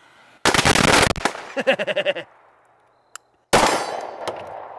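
9mm pistol shots at steel targets mixed with the pops of a Roman candle: a dense loud burst about half a second in, a short run of ringing tones after it, and another sudden bang about three and a half seconds in that trails off slowly.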